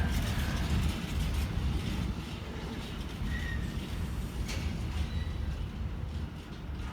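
A train running past on the line: a steady low rumble with a couple of sharp wheel clicks, growing slightly quieter toward the end.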